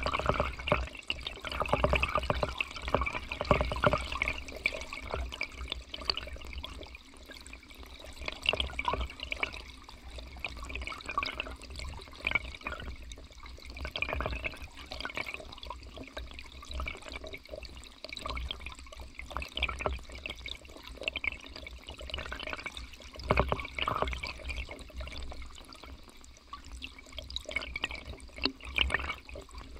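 Shallow river current flowing over cobbles, heard from a camera under the water: an uneven gurgling with many small pops and crackles, swelling louder now and then over a low rumble.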